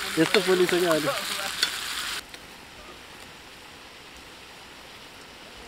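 Meat sizzling as it fries in a metal pan over a wood fire, stirred with a spatula that scrapes and clicks against the pan. About two seconds in it cuts off sharply to a much quieter steady hiss.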